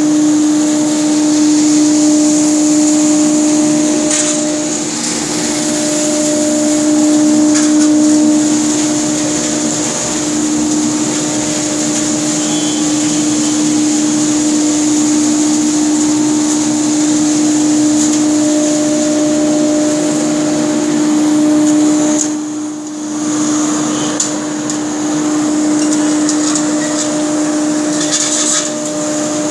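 A workshop dust collector running steadily: a constant loud hum with a rushing air hiss from its suction hose, dipping briefly about two-thirds of the way in.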